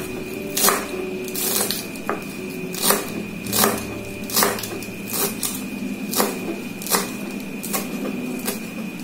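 Kitchen knife chopping celery on a plastic cutting board: a sharp knock of the blade against the board roughly every three-quarters of a second, at a slow even pace.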